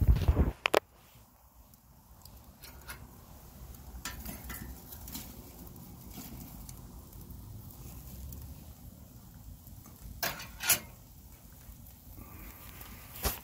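Wood fire crackling in a drum stove's firebox, with scattered pops and clicks and a few louder clatters in the first second and about ten seconds in, as burning logs are shifted with tongs.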